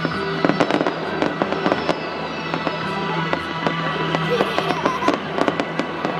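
Fireworks finale: a dense run of bangs and crackles, several a second, over music played for the show.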